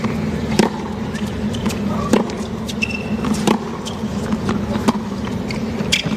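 Tennis ball struck back and forth in a baseline rally on a hard court, with sharp racket hits about every second and a half. A low, steady stadium crowd hum lies underneath.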